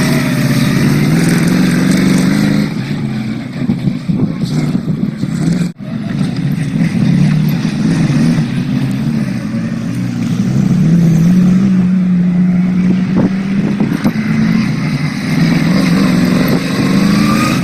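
Off-road race buggy's engine running under load, its pitch rising and falling as it revs, with an abrupt cut about six seconds in.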